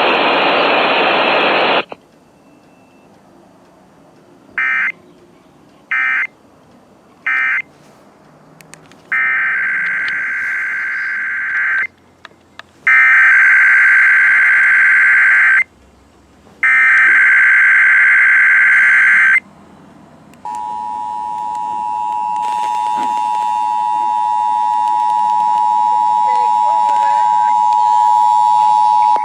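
Emergency Alert System SAME header: three short bursts of warbling data tones, then three longer bursts of a little under three seconds each. About twenty seconds in, the steady two-tone EAS attention signal starts, marking the opening of an alert-system test.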